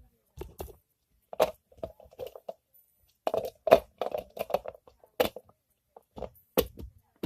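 Handling noise of plastic toy eggs and squishies: a run of sharp clicks and knocks with short rattling stretches, busiest in the middle, as pieces are picked up, shut and set down.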